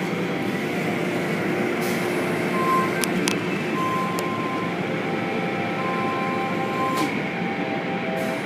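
Automatic car wash heard from inside the car: a steady rush of water spray and rotating wash brushes working over the body, with a few sharp clicks and brief steady tones.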